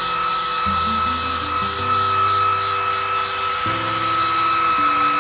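Handheld hair dryer blowing steadily with a high whine, used to dry a cat's wet fur. Background music with held low notes plays beneath it.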